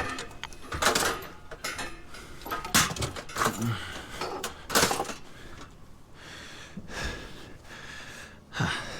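Loose scrap-metal parts clanking and rattling as they are handled, with about five separate sharp metallic knocks.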